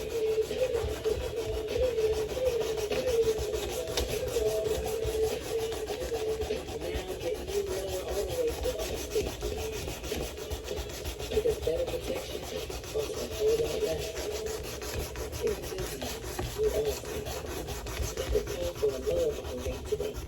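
A knife blade being sanded: a continuous rubbing rasp with a wavering hum beneath it.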